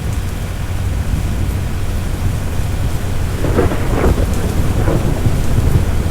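Thunder rumbling over steady rain, with a sharper crackling peal a little over halfway through.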